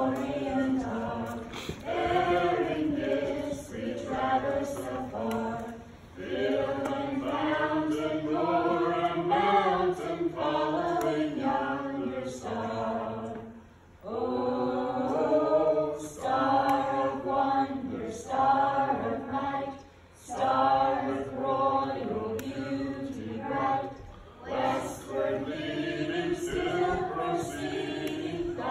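A group of children singing together, phrase after phrase, with short pauses between the lines.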